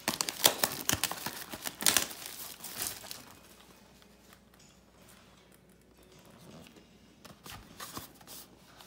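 Plastic wrapping being torn and crinkled off a cardboard trading-card blaster box, loudest in the first three seconds. Then quieter handling of the box, with a few light clicks near the end as the cardboard lid is opened.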